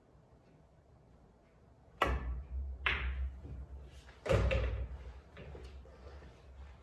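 Pool shot: the cue tip strikes the cue ball, a sharp ball-on-ball click follows about a second later, and the balls rumble as they roll across the cloth. About 4 seconds in a louder, heavier knock comes as a ball hits the far cushion and the object ball drops into the corner pocket, and the rolling rumble fades.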